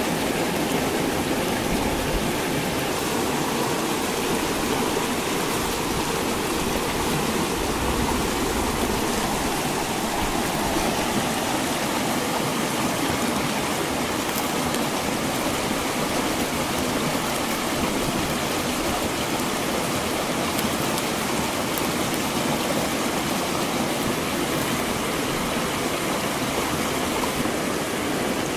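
Small rocky mountain stream rushing and splashing over stones in little cascades, a steady, even rush of water.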